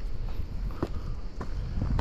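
Footsteps of a hiker walking on a rocky, gravelly path, a few steps at about two a second, over a low wind rumble on the microphone.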